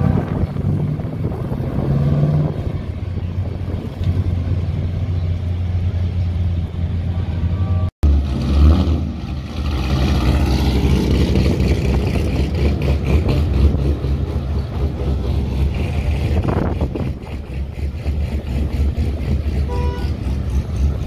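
Engines and exhausts of several classic and sports cars driving off one after another, a loud, deep rumble throughout. The sound cuts out abruptly about eight seconds in and comes back louder.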